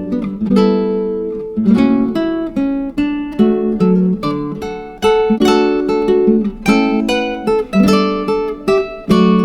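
Background music: strummed and plucked acoustic guitar chords.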